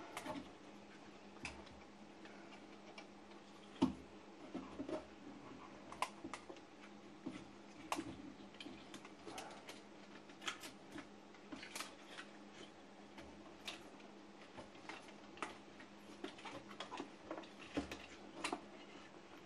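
Irregular small clicks and taps of hands handling a circuit board and its wires inside a record player's case, over a faint steady hum.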